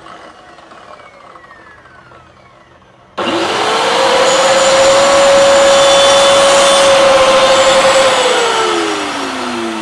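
DCA mini dustless table saw with a 4-inch blade, switched on about three seconds in. Its motor whine rises quickly to a steady pitch over a loud hiss as it trims a piece of wood. It is switched off near the end, and the whine falls as the blade winds down.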